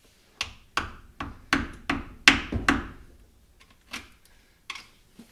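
Blows struck on the rusted differential cover of a 1940 Chevrolet rear axle to knock it loose: seven quick strikes in about two and a half seconds, then two more spaced out near the end, each with a short ring.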